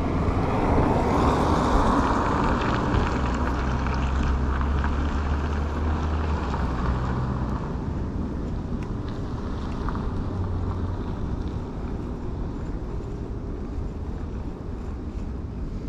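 A car driving past: a steady noise of engine and tyres that is loudest in the first couple of seconds and slowly fades, with a low engine hum in the middle.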